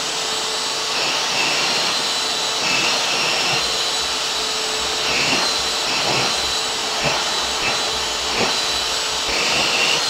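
Vacuum cleaner running steadily with a steady motor whine. Its rush of air changes now and then as the nozzle is stroked along a cat's fur.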